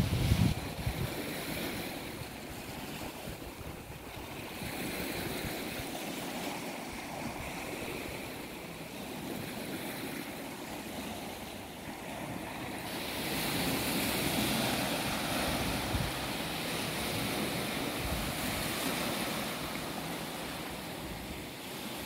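Sea waves washing in over a rocky shore: a continuous hiss and wash of surf that swells louder about two thirds of the way through. Wind buffets the microphone with a low rumble at the very start.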